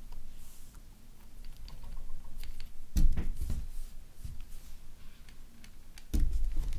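Light clicks and taps of hands handling a small metal magnet and slime on a wooden table, with two dull thumps about three and six seconds in.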